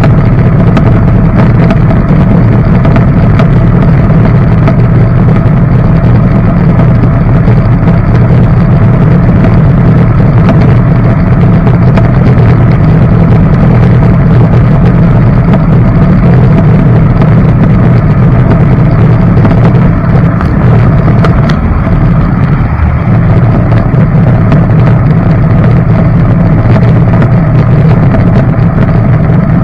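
Jet outboard motor on a jon boat running steadily under way, loud and close.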